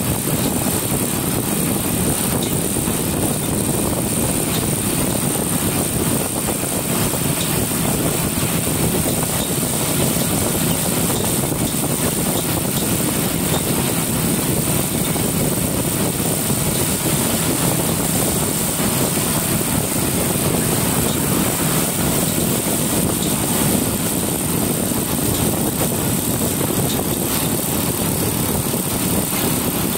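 Motorcycle running steadily at road speed, its engine mixed with wind rushing over the microphone in an even, unbroken roar.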